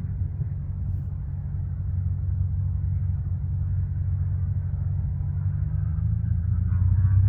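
Piper PA-28R-200 Cherokee Arrow II's four-cylinder piston engine running steadily with a low, pulsing rumble, growing louder near the end.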